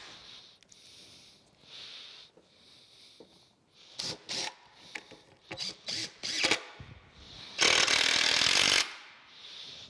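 A few short knocks and clatters of handling, then a cordless drill runs steadily for just over a second near the end, driving a screw into a plywood box.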